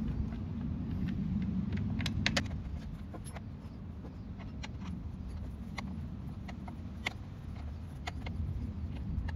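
Small metal clicks and clinks of screws and a hand tool being handled while the engine cover of a STIHL FS250 brushcutter is taken apart, a quick cluster about two seconds in and then single clicks every second or so, over a steady low rumble.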